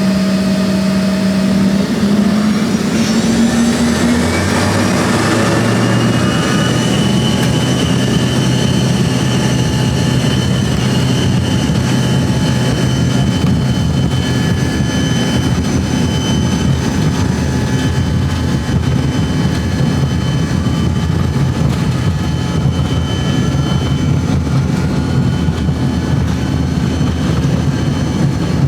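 Regional jet's turbofan engines spool up with a rising whine over the first few seconds, then run steadily and loudly at high power.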